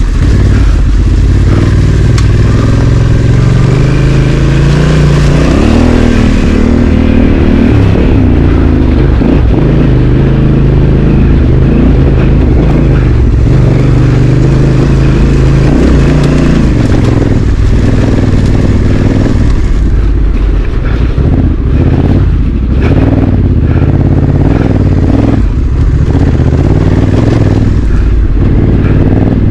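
Honda Africa Twin CRF1100 DCT's parallel-twin engine running loud and close, its note rising and falling as the bike is ridden off-road.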